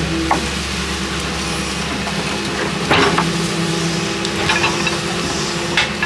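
Excavator working: its engine runs as a steady low drone with a hydraulic whine that comes and goes. There are crunching scrapes of the bucket in earth and stones, the loudest about three seconds in and again near the end.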